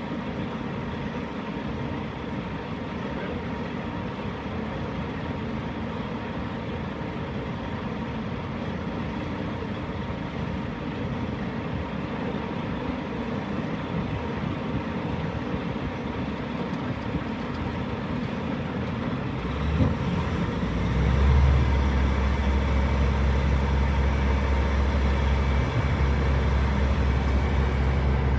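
2007 DAF CF suction excavator truck running steadily while its debris tank is being tipped. About twenty seconds in, a louder, deeper drone sets in and holds.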